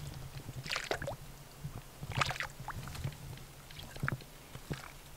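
Hand-pump water filter being worked, pond water squirting through it into a plastic bottle in short spurts, a few strokes about a second and a half apart.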